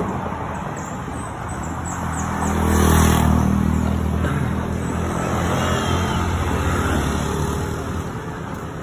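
A motor vehicle's engine running nearby, a low hum that builds to its loudest about three seconds in and then slowly fades.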